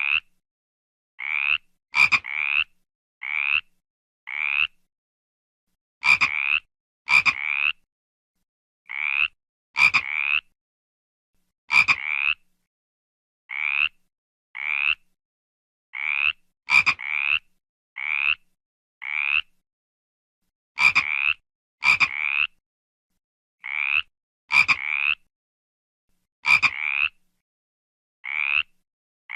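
A frog croaking over and over: short croaks about a third of a second long, roughly one a second, some in quick pairs and some starting with a sharp click, with complete silence between them.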